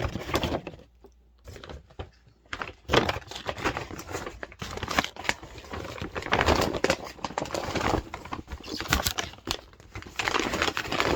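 Gift wrapping being handled, crinkled and torn as a present is unwrapped: a brief lull about a second in, then busy, irregular rustling and crackling.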